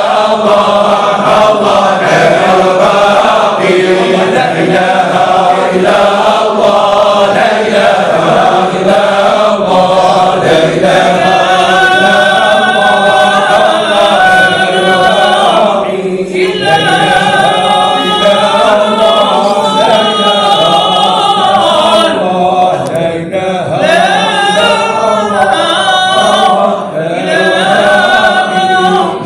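A group of men chanting Sufi devotional songs unaccompanied, their voices together with no instruments. The singing is loud and continuous, with a brief pause for breath about halfway through.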